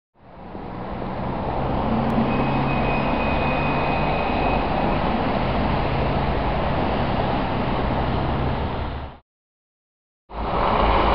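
Steady city street traffic noise with a low engine hum. It fades in at the start, cuts off about nine seconds in, and comes back about a second later.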